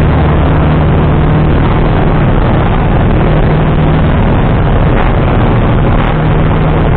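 Steady drone of a single-engine light aircraft's engine and propeller, heard inside the cockpit, with a constant low hum and a dense rushing noise. Two faint ticks come about five and six seconds in.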